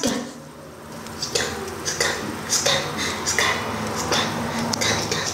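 Irregular light clicks and clinks, a few a second, over a low steady hum.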